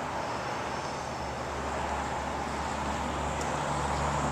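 Motor vehicle noise: a steady rumble with a low engine hum that sets in about a second in and grows slowly louder.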